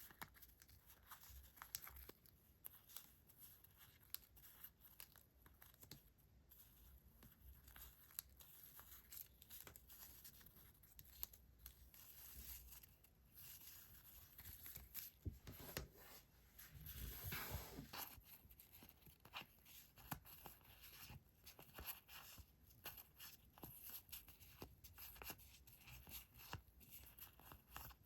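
Paper stickers and stationery handled close to the microphone: soft, crisp paper rustling with many small taps and clicks, and one longer, louder rustle about two thirds of the way through.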